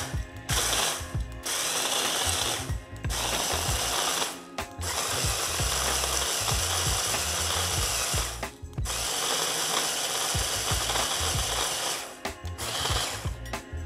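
Hand blender's chopper attachment crushing cornstarch biscuits into crumbs, run in pulses: motor and grinding noise in runs of up to about four seconds, with short stops about a second in, near three, four and a half, eight and a half and twelve seconds.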